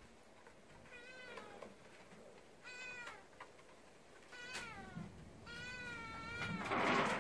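A domestic cat meowing over and over: about five meows that fall in pitch, getting longer and louder toward the end.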